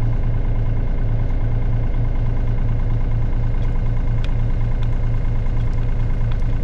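Mini digger engine running steadily at a constant speed, with a regular low throb of about three or four pulses a second.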